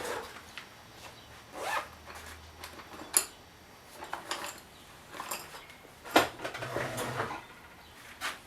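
Intermittent handling noise of tools and small chainsaw parts being worked with: short scrapes, rustles and clicks, with two sharper clicks about three and about six seconds in.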